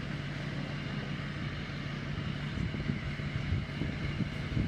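Tractor engine running steadily at idle, with irregular low rumbling noise in the second half.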